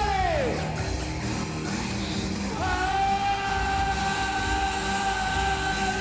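A live rock band playing loudly on stage. A note bends down at the very start, and a long held note comes in about two and a half seconds in.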